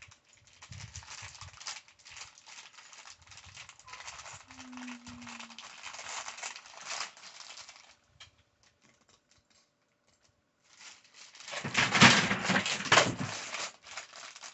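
A small clear plastic bag of toy building bricks crinkling as it is handled, the bricks clicking and rattling inside. After a pause of a couple of seconds it comes back loudest near the end.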